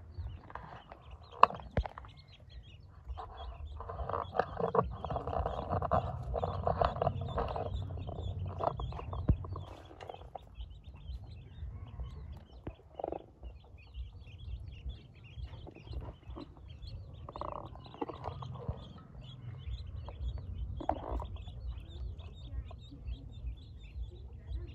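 A group of Pekin ducklings peeping constantly in many short, high calls, with a denser, noisier stretch a few seconds in.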